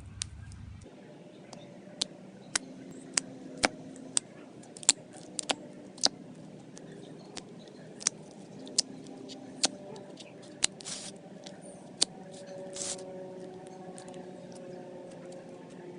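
Clear slime being squeezed and poked by hand, giving irregular sharp clicking pops, about one or two a second.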